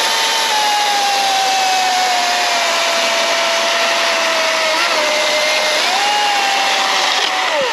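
Milwaukee M18 battery top-handle chainsaw cutting through a log: the electric motor's whine and the chain rasp through the wood. Its pitch sags slowly as the saw works in the cut, picks back up near the end of the cut, then winds down as the trigger is let go at the end.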